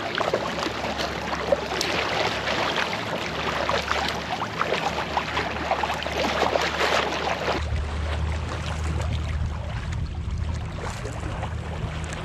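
Water splashing and sloshing around a sea kayak as it is paddled, with many quick splashes. About eight seconds in, the splashing drops away and a low steady rumble with fainter water sounds takes over.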